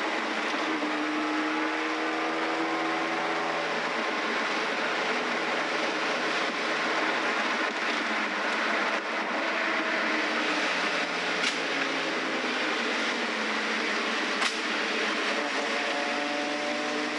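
Lamborghini LM002's 5.2-litre carbureted Countach V12 running under way, heard from inside the cabin as a steady mechanical din mixed with road and wind noise. The engine note climbs in pitch during the first few seconds and again near the end as it pulls. Two sharp clicks come in between.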